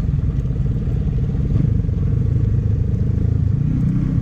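Motorcycle engine running steadily at low speed, heard from on board the bike as it rolls over a rough dirt trail, with some clatter from the ride.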